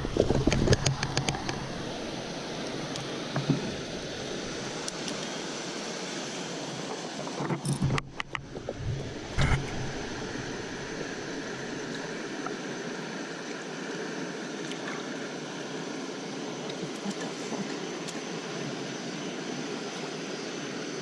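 Steady rush of running creek water, with a few brief knocks about eight and nine and a half seconds in.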